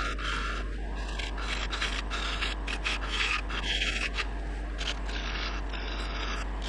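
A tool rubbing and scraping against wood: a continuous rasping noise with frequent brief breaks.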